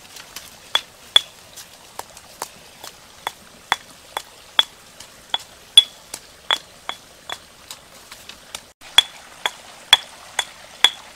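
A pestle pounding in a small mortar, a steady run of sharp clinks at about two to three strokes a second.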